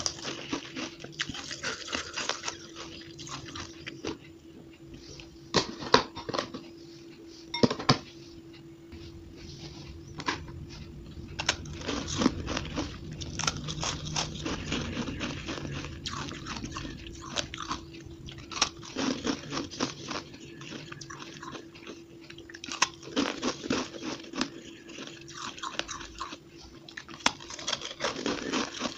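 Close-up crunching bites and chewing of a block of compressed shaved ice, a dense run of irregular crisp crunches. Two sharp, loud bites stand out about six and eight seconds in.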